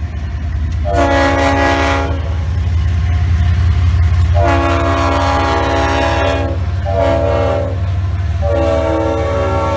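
Walt Disney World monorail sounding its multi-tone horn in four blasts, the second the longest at about two seconds, over the steady low rumble of the train running.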